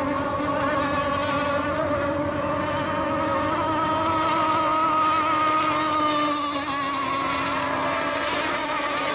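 Several radio-controlled racing boats running the course together, their small engines making a steady high buzz whose pitches waver and drift as the boats race, rising a little midway.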